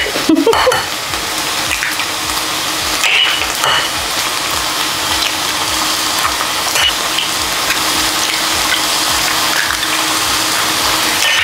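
Girolle mushrooms frying in butter in a pan, a steady sizzle, with a few faint clicks of eggs being cracked into a glass bowl.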